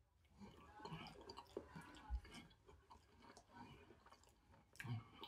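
Faint sounds of someone chewing steamed fish, with small wet mouth clicks. There is a brief low thump about two seconds in.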